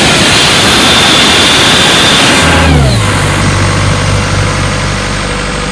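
Compressed air blasting from an open valve on a 1996 Ingersoll Rand towable air compressor: a loud rushing hiss that cuts off about two and a half seconds in. Underneath, the compressor's John Deere engine runs; it slows as the air stops and settles to a steady idle.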